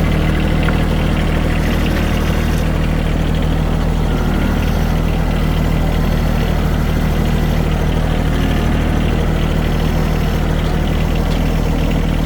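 Farm tractor engine running steadily as the tractor drives along, carrying a load of hay.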